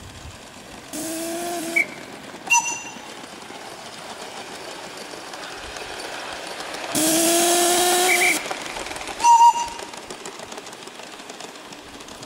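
Steam whistle of a live-steam model locomotive: a short blast about a second in, then a longer blast of about a second and a half near the middle, each a steady low tone with a hiss of steam, the second rising slightly in pitch. Brief sharp high peeps follow each blast.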